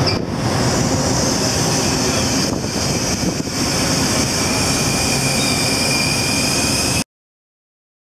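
Steady roar of wind and ship machinery on the open deck of a research vessel at sea, with a faint high whine joining in near the end. The sound cuts off abruptly about seven seconds in.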